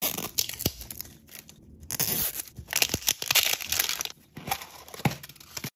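Printed plastic-film wrapper of an L.O.L. Surprise ball being peeled and torn off, crinkling in bursts, loudest in the middle, with a few sharp clicks in between.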